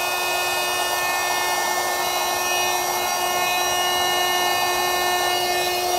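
Small electric air pump running steadily, a motor hum with the hiss of air, as it inflates an inflatable car mattress.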